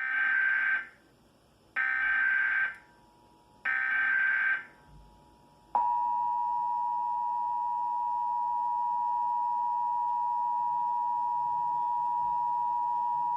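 Emergency Alert System test signal: three short bursts of SAME header data, each under a second long and about two seconds apart, followed by the EAS two-tone attention signal (853 Hz and 960 Hz together), a steady tone held for about eight seconds.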